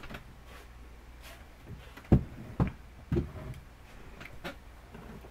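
Three dull thumps about half a second apart, with a few fainter clicks, over a low steady hum.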